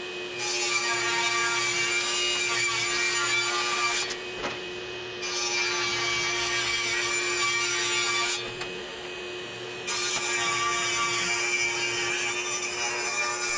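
Table saw ripping a wooden fence picket into thin strips: three rip cuts, each about three to four seconds long. A steady hum carries on in the gaps between cuts.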